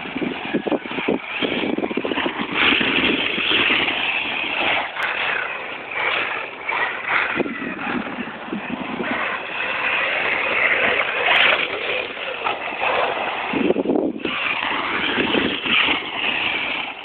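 Brushless electric radio-controlled cars, an HPI Savage Flux monster truck and an Ofna running a modified 22.2 V brushless setup, being driven on dirt. Their motors and drivetrains make a continuous whine and rush that swells and fades as they speed up and slow down.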